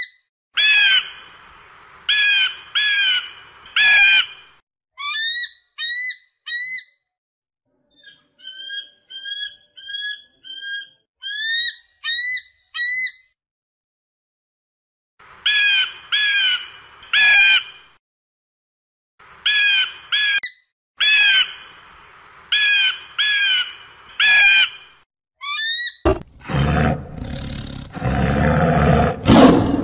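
Eagle giving repeated shrill calls in quick groups, with runs of short rising chirps between them and a brief pause midway. About 26 seconds in, a tiger roars loudly.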